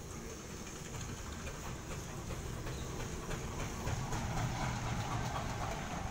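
Old engine running at idle, a steady low rumble with a rapid light ticking, growing a little louder about four seconds in.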